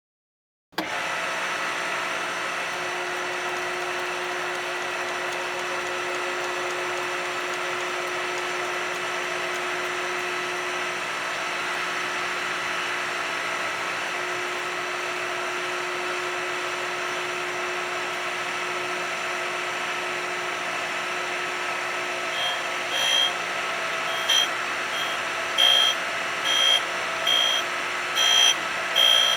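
Electric grinder switched on abruptly about a second in, then running steadily with a whining hum. Near the end a series of short, louder, higher-pitched bursts comes about once a second.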